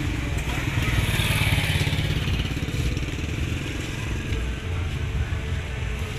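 Motorcycle engine running, swelling a little about a second in and then settling to a steady rumble.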